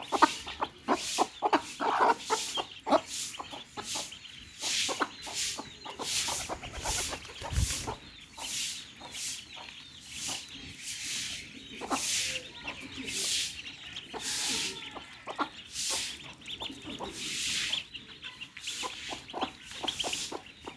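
A hen clucking while she and a brood of ducklings peck crumbled feed off a paper sheet: many quick, sharp taps and scratchy rustles of bills striking the paper.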